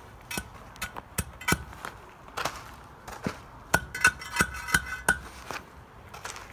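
Wooden asphalt shoes strapped over work boots knocking and clacking as they step on fresh, loose asphalt, pressing it down before rolling. The knocks come in a quick, irregular run, a few with a short metallic ring about four to five seconds in.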